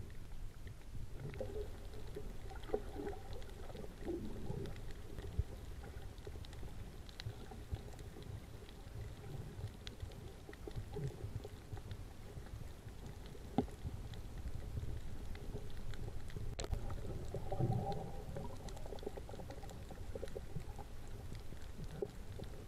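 Muffled underwater sound picked up by an action camera below the surface: a low rumble of moving water with irregular gurgling and bubbling and a couple of sharp clicks.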